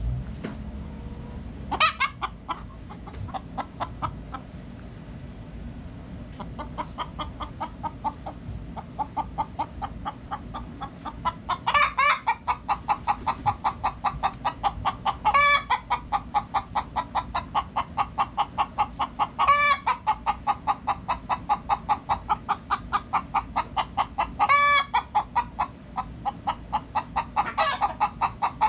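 Chickens clucking in a steady rapid run, about three or four clucks a second, picking up a few seconds in. Louder single calls break through it six times.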